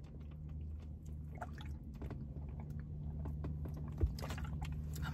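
Someone drinking from a plastic water bottle: faint sips and swallows with small clicks, and a soft thump about four seconds in, over a steady low hum.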